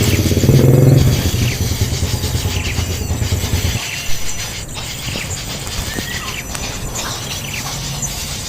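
A small engine running with a rapid, even pulse, cutting off about four seconds in. Short high bird chirps and a faint insect buzz continue throughout.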